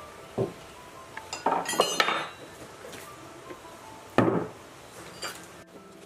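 A hand tool clinking and knocking against a water pump's metal flange and bolts during assembly: a few sharp metallic clinks with a short ring, a quick cluster about two seconds in and the loudest single knock about four seconds in.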